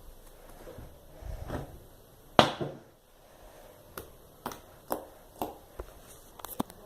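Slime being squeezed and worked by hand, giving one loud pop and then a string of sharp, irregular clicks and pops.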